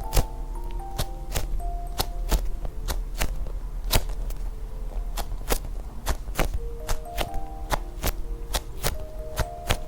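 Background music with a light melody of short notes, over irregular sharp clicks or taps, about two a second.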